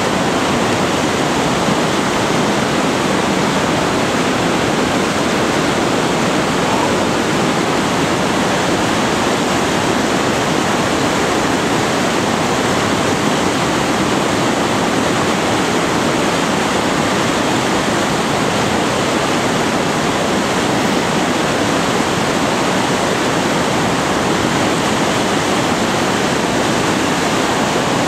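Whitewater rushing down an artificial slalom canoe channel: a loud, steady, unbroken rush of churning water.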